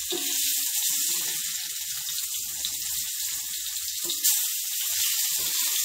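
Masala-coated fish pieces sizzling in oil on a cast-iron dosa tawa as they are turned over with a metal spatula, with a sharp tap about four seconds in.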